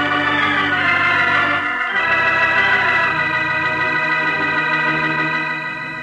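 Organ music bridge of a radio drama: full sustained chords, shifting to a new chord about two seconds in, then beginning to fade near the end.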